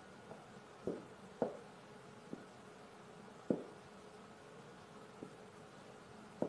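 A cat knocking against the clear glass box it is curled in: a few soft, short knocks, the loudest about a second in, at a second and a half, and at three and a half seconds, over a faint steady hum.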